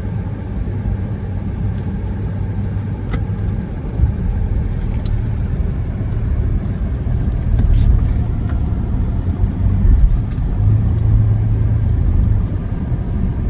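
Car running at low speed, a steady low engine and road rumble with a few light knocks over it.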